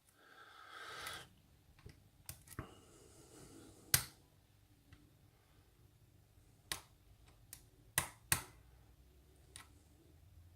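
Faint, scattered metallic clicks of a lock pick and tension wrench working the pins inside a lock's keyway, about ten sharp ticks with a short scrape at the start, as the picker tries to set a stuck pin.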